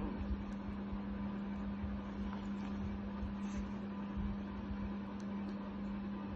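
Steady low electrical hum with a faint hiss behind it: household background drone.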